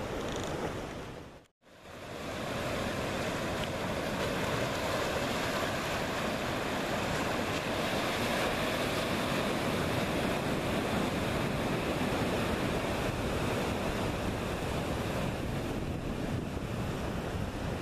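Ocean surf breaking and washing over a rocky reef flat, a steady rush of water, with wind buffeting the microphone. The sound cuts out briefly about a second and a half in.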